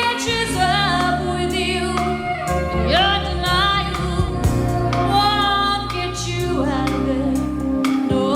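Live pop-rock band: a woman singing held notes with vibrato over bass guitar and drums, from an off-air cassette recording of an FM broadcast.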